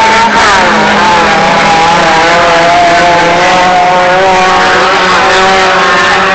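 A racing vehicle's engine running loud and close, under hard throttle. Its pitch drops sharply just after the start, then climbs and wavers as it is revved.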